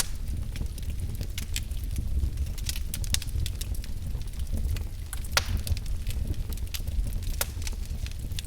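Wood fire in a fireplace burning, crackling with frequent irregular sharp pops over a low steady rumble of the flames; two louder pops come about five and a half and seven and a half seconds in.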